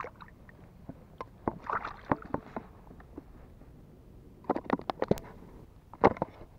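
Sharp clicks and knocks of a fishing rod and tackle being handled in a small boat, in short bursts about one to two and a half seconds in, around five seconds in, and once more near the end.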